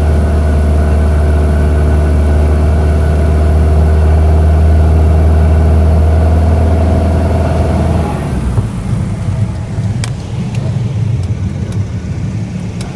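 Cessna 172 floatplane engine and propeller running with a steady hum on the landing approach, heard from the cockpit. About eight seconds in the engine note drops suddenly as power comes off, leaving a low, uneven rumble as the plane settles onto the water, with a few light clicks near the end.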